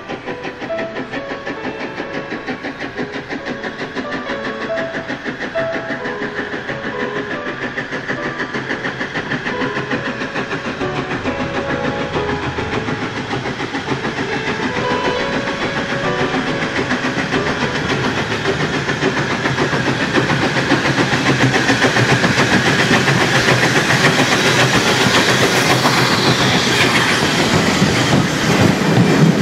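LNWR Coal Tank 0-6-2T steam locomotive No. 1054 hauling its carriages towards and past the listener, its exhaust beats in a fast, even rhythm growing steadily louder, with steam hissing as it draws level near the end.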